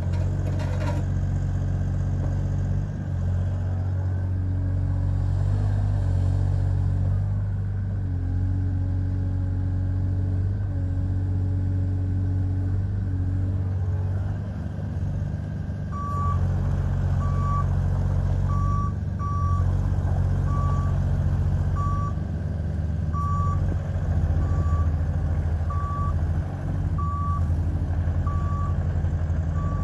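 Kubota three-cylinder diesel of a CFG40UF mini excavator running under hydraulic load as the boom and bucket work, with a higher steady tone joining for a few seconds in the first half. About halfway through, a travel alarm starts beeping a little over once a second as the machine moves.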